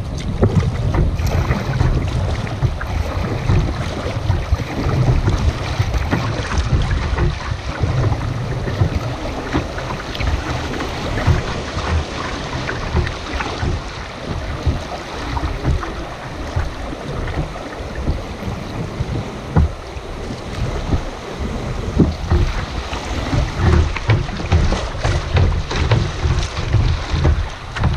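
River water rushing and splashing against a kayak's hull as it runs fast current, with wind buffeting the camera's microphone in a steady low rumble. Near the end, waves splash up over the bow and the sound turns choppier.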